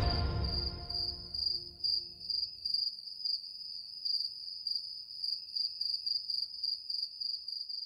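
Music fading out over the first second or so, then an insect chirping in an even, high-pitched pulsed trill of about three pulses a second, like a cricket.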